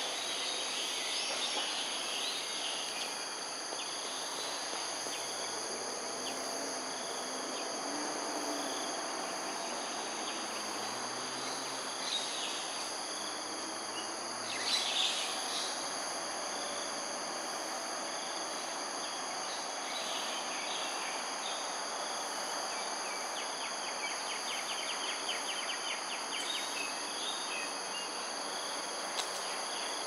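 Steady chorus of insects shrilling at several high pitches at once, over a broad background hum, with scattered bird chirps, the loudest about halfway through, and a short run of rapid ticks near the end.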